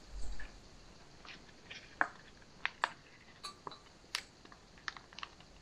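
Soft plastic water pouch crinkling and crackling in irregular sharp clicks as it is squeezed to push water through a Sawyer Mini water filter.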